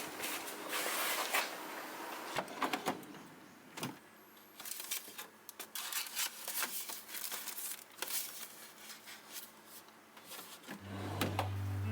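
Scattered light clicks, knocks and rustles of plastic fridge storage trays and containers being handled and set in place. Music comes in about a second before the end.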